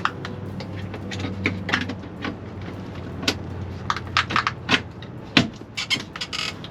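Hard plastic clicks, taps and knocks of a bilge pump being worked into its plastic housing and base by hand, a scatter of sharp irregular snaps with the loudest about five and a half seconds in.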